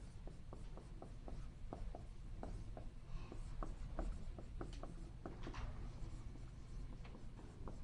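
Writing by hand on a board: a run of short, irregular taps and scratches, several a second.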